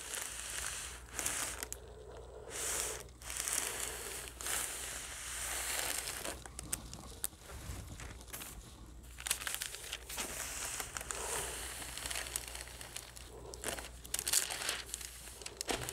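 A thin translucent pressing sheet crinkling and rustling as a hand iron slides across it and it is lifted and moved over a quilt sandwich. The iron's heat is fusing the quilt layers together for basting.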